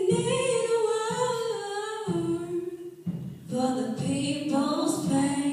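Female voices singing a cappella into handheld microphones, with long held notes that slide in pitch and a short break about two seconds in.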